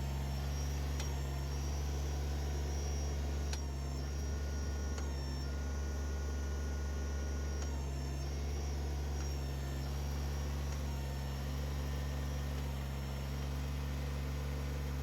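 Kubota BX23S compact tractor's three-cylinder diesel engine running steadily while the backhoe's root ripper is worked against a walnut log, with faint thin whines coming and going above the engine.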